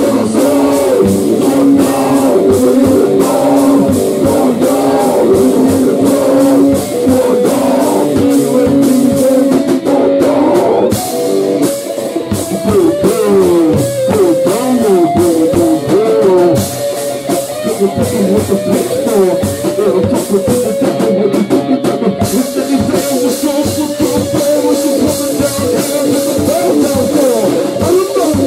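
Rock music: guitar and drums playing without lyrics. In the middle the notes bend and slide up and down.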